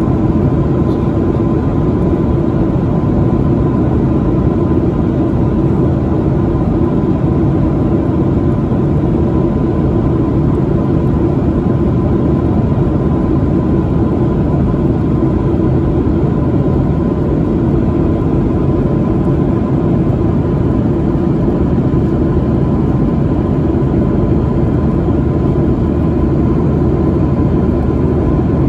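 Steady cabin noise of a Boeing 737-900 in cruise, heard from a window seat over the wing: the constant rush of airflow and the drone of its CFM56-7B turbofan engines, with a thin steady whine running through it.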